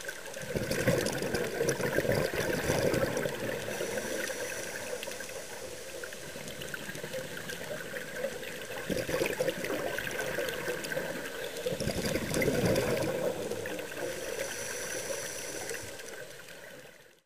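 Scuba diver breathing through a regulator underwater: two long rushes of exhaled bubbles, one starting about half a second in and another about twelve seconds in, over a steady underwater hiss. The sound cuts off abruptly near the end.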